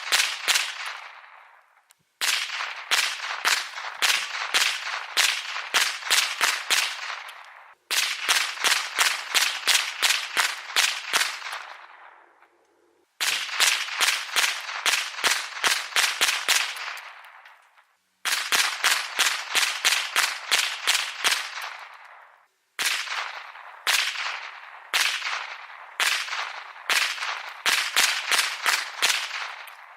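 Ruger 10/22 .22LR semi-automatic rifle firing rapid strings of shots, several a second, each string ending in a fading echo before an abrupt cut to the next string.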